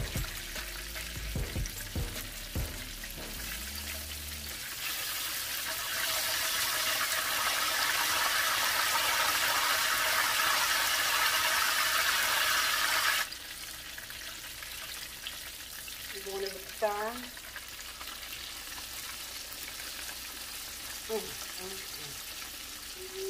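Battered turkey pieces deep-frying in hot oil in a cast-iron skillet: a steady sizzling, bubbling hiss. It grows louder about five seconds in and drops back suddenly around thirteen seconds.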